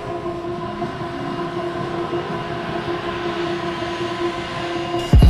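Electric heat guns running: a steady motor whine over the hiss of blown hot air.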